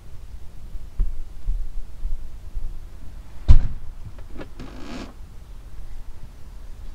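Hand polishing a motorhome's acrylic window: one sharp knock about three and a half seconds in, then a couple of small clicks and a short rubbing stroke on the pane.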